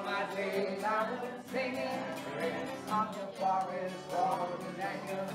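A group of people singing a song together, several voices over a steady low note.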